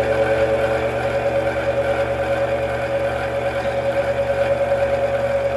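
Mini metal lathe running steadily, its motor and gears giving a constant whine while the front of the workpiece is faced off.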